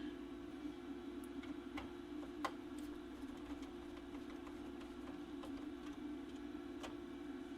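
Scattered light clicks and ticks, about seven of them at irregular intervals, from handling the monitor's circuit board and parts, over a steady low hum.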